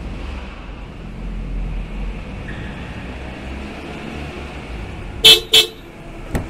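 A car idling with a low engine rumble sounds its horn in two short toots a fraction of a second apart, about five seconds in; a sharp click follows near the end.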